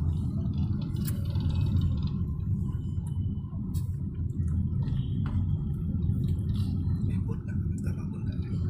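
Steady low road and engine rumble of a moving car, heard from inside the cabin, with a few faint clicks.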